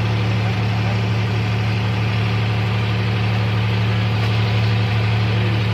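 John Deere 5310 tractor's diesel engine running steadily at a constant speed, a low, even hum.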